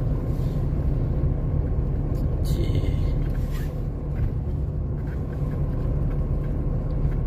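Steady low rumble of a car's engine and tyres, heard inside the cabin while driving on the road, with a brief hiss about two and a half seconds in.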